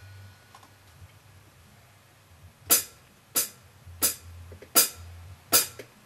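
Five evenly spaced, sharp cymbal-like hits on a drum kit, about two thirds of a second apart, a count-in ahead of the song; the first two seconds or so are quiet.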